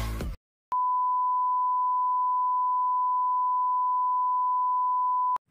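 A steady, single-pitched electronic beep, a TV test-card tone, held for about four and a half seconds and then cut off sharply. Electronic music fades out just before it starts.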